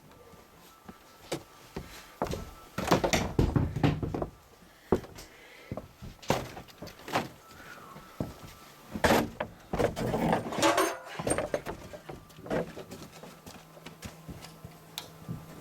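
Knocks, thuds and clattering of kitchen demolition work, with materials being pried and knocked loose in two busy spells. A low steady hum comes in near the end.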